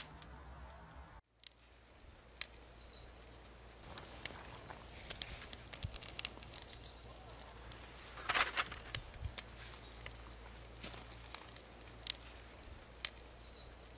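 Kindling fire crackling and popping in a stainless-steel camp wood stove as it lights a perforated coal briquette, with small birds giving short falling chirps now and then. A louder burst of noise about eight seconds in.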